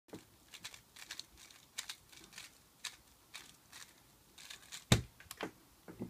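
A 3x3 Rubik's cube being turned by hand, its plastic layers making irregular quick clicks and rattles, most likely during the scramble. A heavier knock comes about five seconds in as the cube is set down on the mat.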